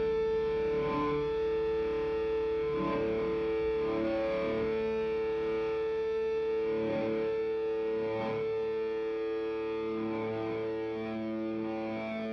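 Distorted electric guitar with effects playing long sustained notes that change every second or two, slowly easing down in level toward the end.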